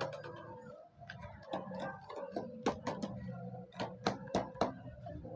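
Irregular sharp clicks and taps of hands handling a plastic action figure and its packaging, over a faint steady hum.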